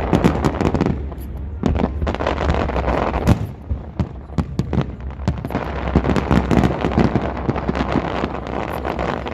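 Fireworks display: a dense run of bangs and crackles from many shells bursting, over a continuous low rumble.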